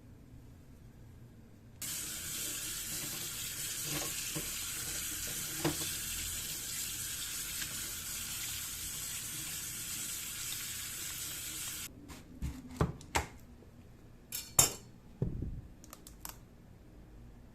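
Kitchen tap running in a steady hiss for about ten seconds, turned on and off abruptly, as when rinsing produce. It is followed by a few sharp knocks and clatters of things being handled on the counter.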